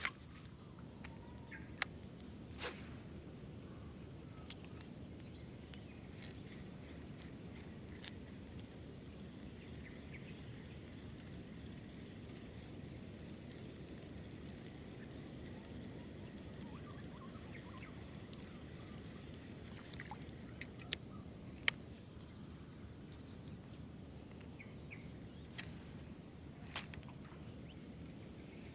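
Quiet outdoor ambience with a steady high-pitched hiss, broken by a few scattered sharp clicks and taps from casting and retrieving with a spinning reel and light rod.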